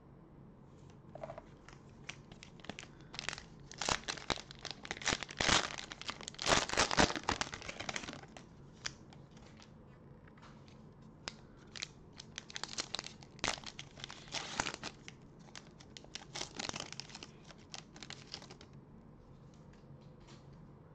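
Plastic cellophane wrapper of a trading-card pack crinkling and tearing as it is opened by hand, in irregular bursts, loudest about four to eight seconds in, with more crinkling after a short lull.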